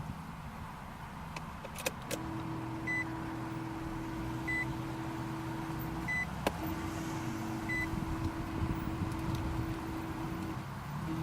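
A car engine idling, which the owner suspects may have a vacuum leak. A steady hum comes on with a click about two seconds in and drops out briefly twice. Short electronic beeps sound about every second and a half.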